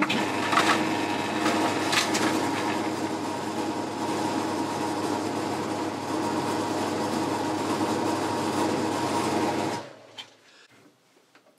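Boxford lathe running with a steady hum while a parting-off tool faces the end of a small knurled nut, adding cutting noise. The sound cuts off suddenly near the end.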